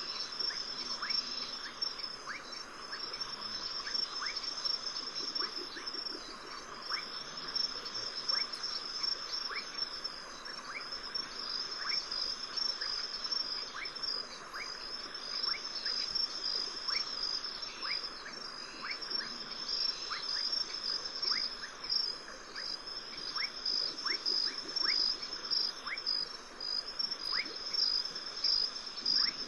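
Rainforest insect chorus: a steady high-pitched trill with many short chirps scattered through it.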